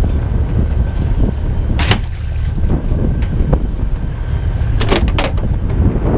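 A steady low rumble on the deck of a small fishing boat, broken by sharp knocks: one about two seconds in and two close together near five seconds, as cod are handled in plastic tubs.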